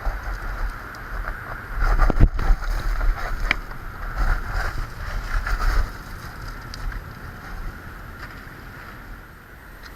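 Wind buffeting the microphone, gusting strongest a couple of seconds in and easing off after about six seconds, over a steady high-pitched hum.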